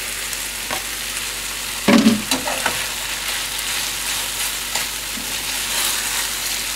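Beef strips and sliced vegetables sizzling in a frying pan while a spatula stirs and scrapes through them, with a louder knock about two seconds in.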